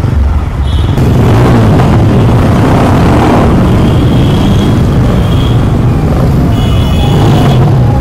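Motorcycle engines and surrounding road traffic heard from a motorcycle moving slowly in dense traffic. A steady, loud, low rumble of engines and road noise that grows louder about a second in.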